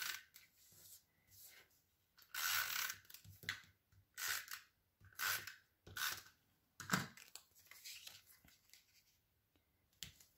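Stampin' Up Snail tape-runner adhesive drawn across cardstock in a run of short strokes, about seven, followed by softer sounds of the card layers being handled and pressed down.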